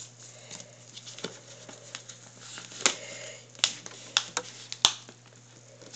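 Paper rustling and crinkling as a paper airplane's wing is folded and creased by hand: scattered small crackles and clicks, a brief rustle about three seconds in and a sharp click near five seconds.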